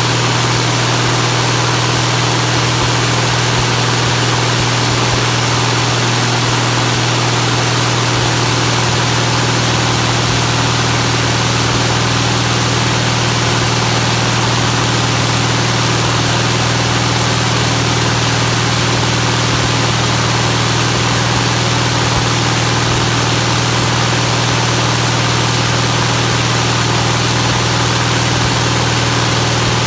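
UL Power UL520iS fuel-injected flat-six aircraft engine running steadily at an even speed during a break-in ground run, driving a wooden pusher propeller. A strong low drone sits under a broad rushing propeller wash.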